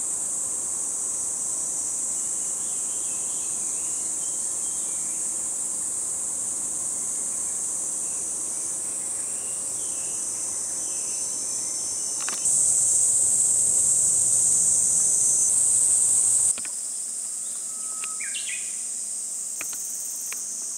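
Steady, shrill chorus of summer insects, a continuous high-pitched drone that grows louder about twelve seconds in and drops back about four seconds later.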